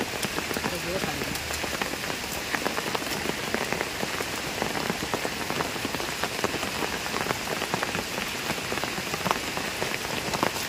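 Steady rain falling, with many sharp ticks of close drops.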